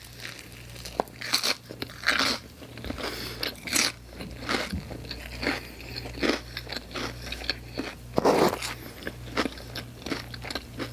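Close-up mukbang eating: irregular crunching and chewing of pizza topped with hot Cheetos, with the loudest crunch about eight seconds in.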